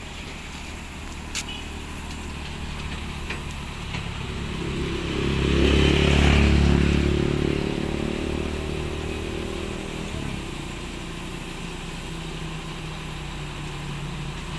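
Concrete mixer truck's diesel engine running, rising in level about five seconds in and settling back after about three seconds.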